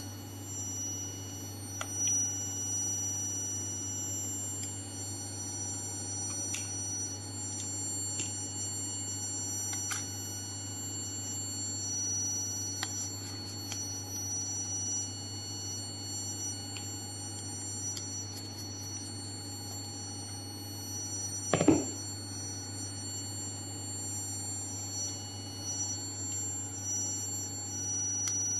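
A steady electrical hum with several thin, high-pitched whines over it. Faint clicks come from a hex key and screwdriver working on a vibration exciter motor's casing and its small sensor connector, and there is one sharp knock about 22 seconds in.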